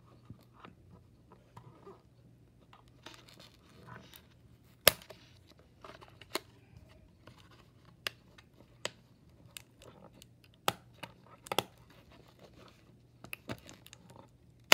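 Cardboard and clear plastic packaging of a die-cast model's window box being worked open by hand: irregular sharp clicks and snaps with some tearing and crinkling, the loudest snap about five seconds in.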